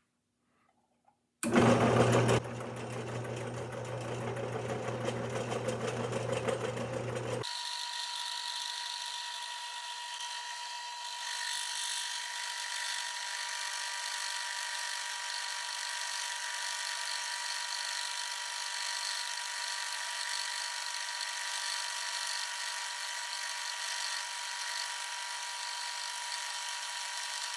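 Milling machine motor starting with a loud burst about a second and a half in, then running with a steady whine made of several constant tones. About seven seconds in, the low part of the sound drops out abruptly and only the higher whine goes on.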